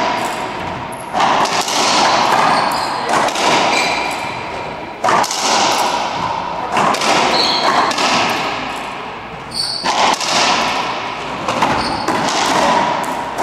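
Racquetball rally in an enclosed court: the ball cracking off racquets and walls every second or so, each hit echoing around the court, with short high squeaks of sneakers on the hardwood floor.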